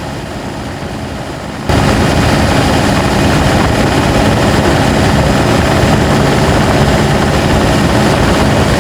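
Turbodiesel pickup climbing a steep grade under load: engine and road noise that suddenly grows much louder about two seconds in and then holds steady as a dense rumble.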